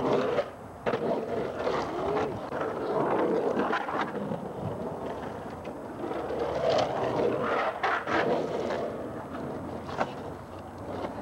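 Skateboard wheels rolling across the concrete bottom and walls of an empty swimming pool, with a few sharp knocks of the board.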